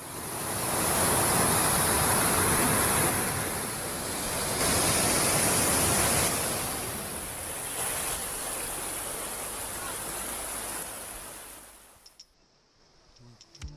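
Steady rushing of water pouring over a small river weir. It fades in at the start and cuts off about twelve seconds in.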